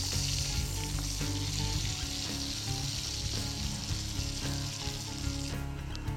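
Bacon sizzling as it fries in a small pot over a backpacking gas canister stove, with a fork moving the strips about in the fat. The sizzle weakens near the end.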